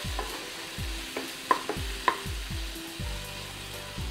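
Chopped tomatoes and onion sizzling in oil in a nonstick kadai while a wooden spatula stirs them. There is a steady sizzle and repeated knocks and scrapes of the spatula against the pan, with two sharper taps about a second and a half and two seconds in.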